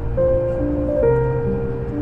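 Background music: a slow melody of held notes, each changing roughly every half second, over a sustained low bass.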